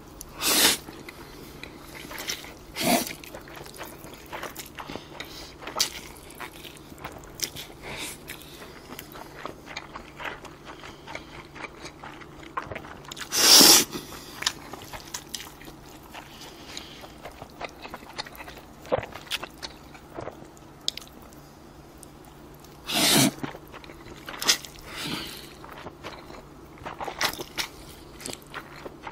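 Close-up eating sounds of a person having bibim-myeon noodles and beef brisket: four loud slurps of noodles, one just after the start, one about three seconds in, and longer ones near the middle and about two-thirds of the way through. Between them there is steady wet chewing with small clicks.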